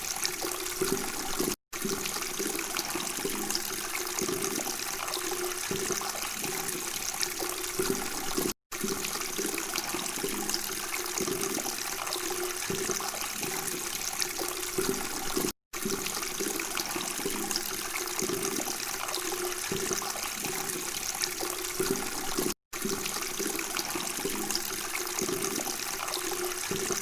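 Flowing water murmuring steadily. The sound cuts out for a split second about every seven seconds, where a short recording is looped.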